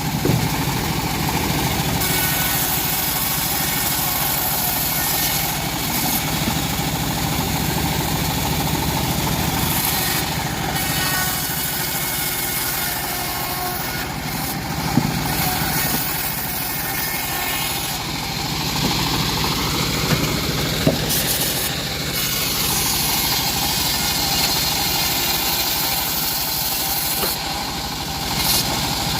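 Band sawmill running steadily as it saws teak wood, with a brief rise and fall in pitch about twenty seconds in and a couple of sharp clicks.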